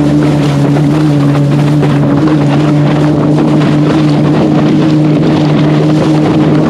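Flipsky 70165 waterproof brushless motor driving an electric SUP board at high speed, a steady hum with a higher tone above it. Under it is the rush of water spray and wind on the microphone.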